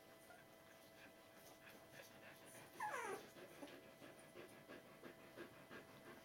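Faint panting of an adult Border Collie, with one short whimper falling in pitch about three seconds in.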